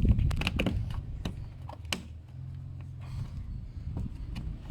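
Scattered sharp clicks and knocks of side-skirt fasteners being fitted to the car, several close together in the first second and a few more later, over a low steady hum.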